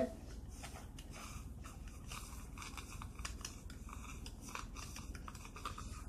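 Faint scattered small clicks and scrapes of eating candy off a small stick and handling a small plastic candy-making toy.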